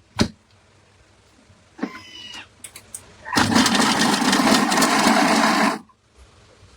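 Thermomix blades spinning at high speed for about two and a half seconds, chopping onions, then stopping abruptly. A few clicks and a short pitched whir come before it.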